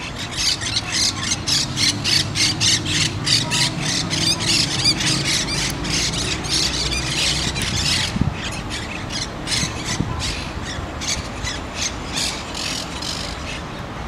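Flock of monk parakeets squawking, harsh calls following each other at about three a second, thinning out after about eight seconds, over a low steady rumble.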